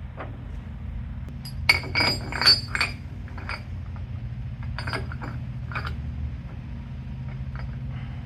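Steel differential gears and shims clinking against each other and the carrier as Torq Locker parts are fitted one piece at a time into a Dana 60 differential carrier. A quick cluster of sharp metallic clinks comes about two seconds in, then a few single clinks, over a steady low hum.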